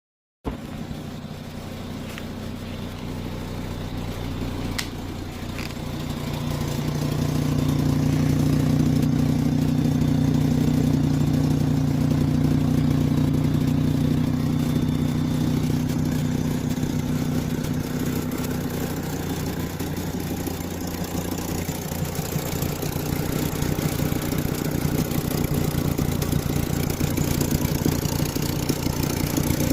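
A Volkswagen Rabbit's engine running, its exhaust leaking. The running grows louder from about six seconds in, then holds steady.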